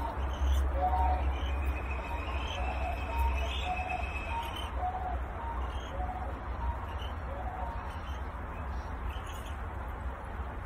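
Young sandhill crane chick calling in a series of short chirping notes, thinning out after about eight seconds, over a steady low hum.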